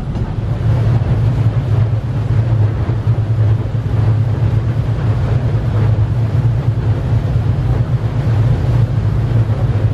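Lake ferry under way, heard from the open deck: a steady low drone of the engine, with wind buffeting the microphone and the wash of the water.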